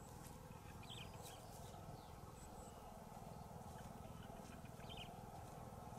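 Faint open-air ambience: a steady low wind rumble with a few brief, faint high chirps scattered through it.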